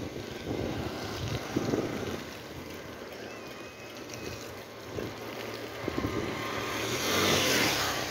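Wind buffeting the camera microphone while riding a mountain bike on a wet road, in uneven gusts, with a hiss that grows into a louder rush near the end.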